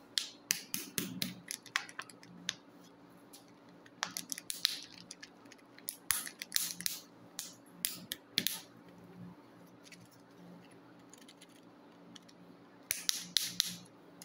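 Foil wrapper of a Kinder Joy egg crinkling and crackling under fingers as it is handled and picked at, in bursts of sharp crackles with a quiet stretch of a few seconds before a last burst near the end.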